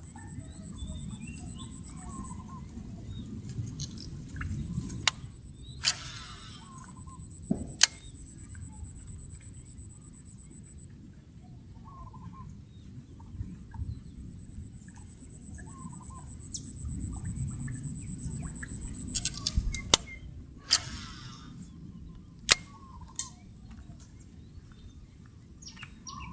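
Outdoor ambience: a steady high-pitched whine that drops out about eleven seconds in and later returns, birds chirping, and a low rumbling background. Several sharp clicks stand out, the loudest about eight seconds in and near the end, with two brief whooshes.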